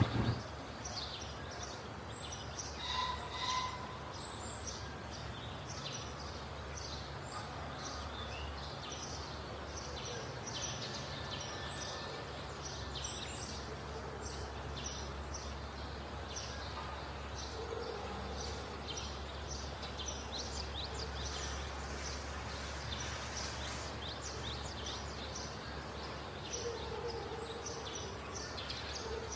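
Outdoor ambience of many small birds chirping, short high chirps all through, over a steady low background hum, with one brief louder call about three seconds in.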